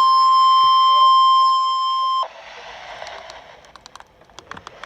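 NOAA Weather Radio 1050 Hz warning alarm tone, the signal that a watch or warning (here a flood watch) is being broadcast. The loud steady tone cuts off abruptly about two seconds in, leaving radio hiss with scattered static crackles.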